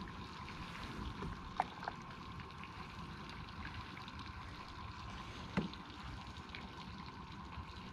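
Lake water lapping against a kayak hull, with a faint steady hum underneath and two light knocks, one about a second and a half in and another past five seconds.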